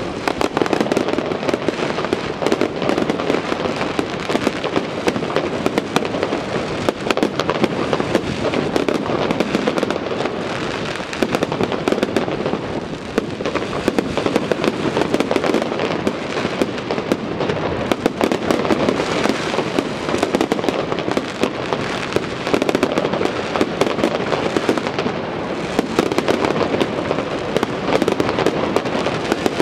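Dense, continuous fireworks display: a rapid, unbroken stream of crackling and popping bursts with heavier bangs mixed in.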